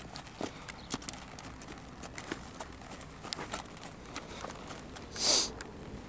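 A horse moving, with scattered irregular hoof knocks, and about five seconds in one loud short rush of breath: the horse snorting.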